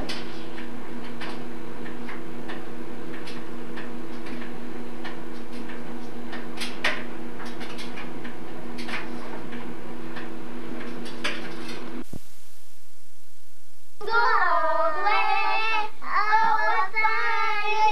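A steady low hum with scattered faint clicks cuts off abruptly about twelve seconds in. After a couple of seconds of silence, a child starts singing.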